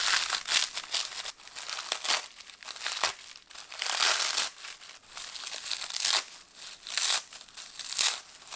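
Toasted sheets of gopchang-gim, dried laver seaweed, torn by hand into a bowl: dry, crisp crackling and tearing in irregular bursts with short pauses between handfuls.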